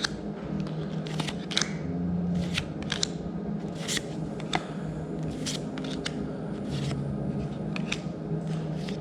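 Magic: The Gathering cards being handled and flipped through by hand: an irregular run of short, crisp swishes and snaps as the cards slide against one another.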